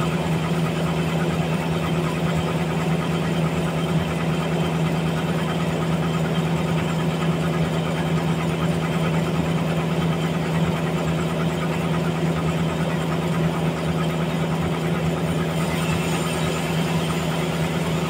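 Large vertical band sawmill running: a steady low hum with a rough, rattling noise above it, unchanged throughout.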